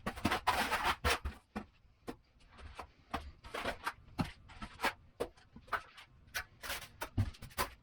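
Steel finishing trowels scraping and tapping on wet mortar as a shower curb is floated: a longer scrape in the first second, then irregular clicks and short scrapes.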